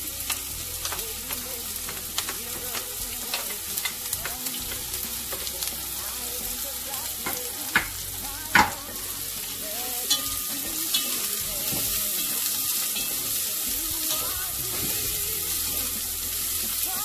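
Chopped onions sizzling and crackling in hot oil in a pot, with a wooden spoon stirring them. Two sharp knocks come about eight seconds in, and the sizzle grows a little louder from about ten seconds in.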